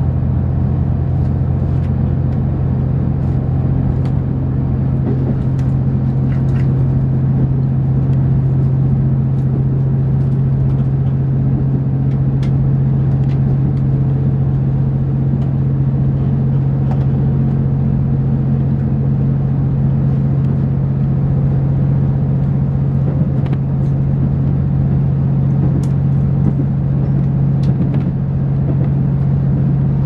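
Steady low drone of a diesel express train's engine and running gear heard inside the carriage, with faint scattered clicks.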